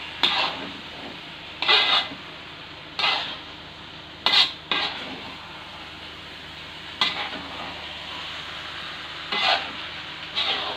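Spatula scraping and stirring diced potatoes in chili sauce in a wok: about eight short scraping strokes at uneven intervals, over a steady sizzle of frying.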